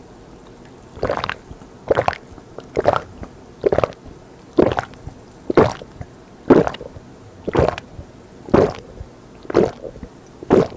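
A person gulping down a glass of orange soda in one go: a steady run of swallows, about one a second.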